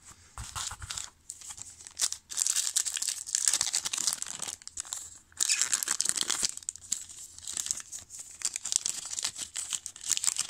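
Foil wrapper of a baseball card pack crinkling and tearing as it is opened by hand, in bursts with a short break about halfway through.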